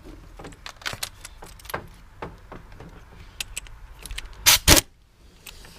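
Metal hand tools clinking and rattling in irregular small clicks, with two loud clanks close together about four and a half seconds in.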